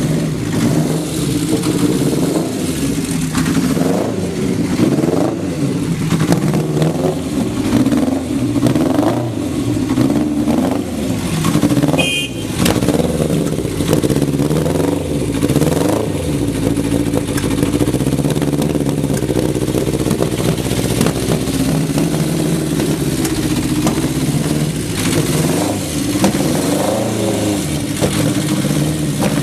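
Honda CB900F air-cooled inline-four engine running, revved up and down in throttle blips through the first half and then holding a steadier speed. The seller lists it as idling stably with no abnormal noises.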